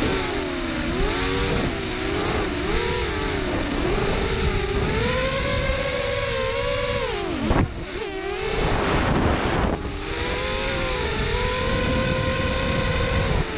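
FPV quadcopter's electric motors and propellers whining, with several close pitches that rise and fall as the throttle changes. About seven and a half seconds in the pitch drops sharply, and a rougher, noisier stretch follows for about two seconds before the steady whine returns.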